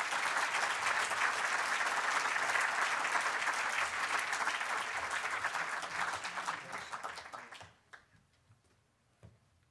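Audience applauding: dense, steady clapping from a large crowd that fades and dies away about eight seconds in.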